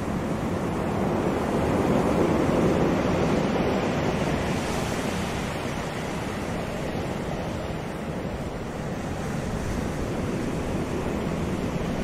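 Sea surf breaking and washing over rocks along the shore, a steady rushing wash that swells about two seconds in and then eases.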